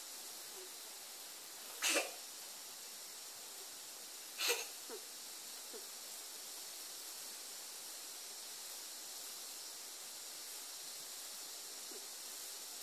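Two short, sharp puffs of breath from play-fighting kittens, about two and a half seconds apart, over a steady faint hiss.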